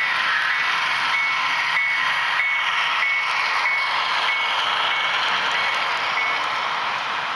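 HO-scale model train running past, Union Pacific diesels with refrigerator cars in tow, a steady rushing hiss of the moving train. Over it, a short high electronic beep repeats about every half second and stops about six seconds in.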